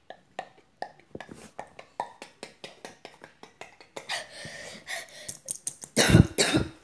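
Beatboxing: a string of sharp mouth clicks and pops, then breathy hissing from about four seconds in, and a few loud breathy bursts near the end.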